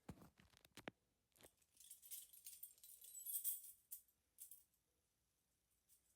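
Faint clicks, then a soft jingling rattle for about two seconds, loudest around three seconds in, with a few light ticks after.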